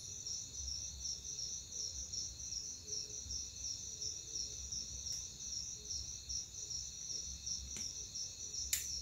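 Cricket chirping steadily in a regular, pulsing rhythm, with a faint click near the end.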